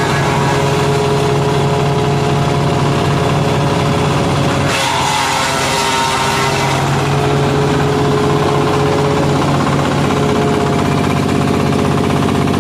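Engine-driven wood chipper running steadily at speed, with a burst of chipping noise about five seconds in as leafy branches are pulled in and shredded; the engine note dips under the load and recovers.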